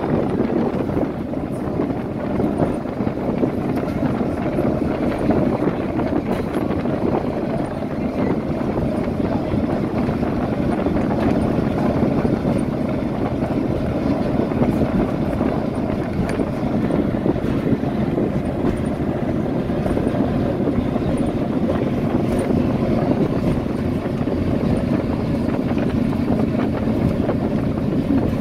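Steady drone of a bus in motion, engine and tyre noise heard from inside the bus.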